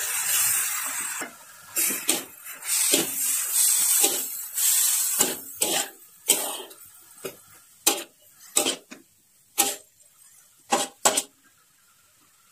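Shredded jicama landing in a hot wok with a short sizzling rush. Then a spatula scrapes and clanks against the wok as the jicama is stir-fried, in irregular strokes that grow sparser toward the end.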